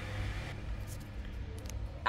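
Electric oven running with its rotisserie motor turning the spit: a low, steady hum.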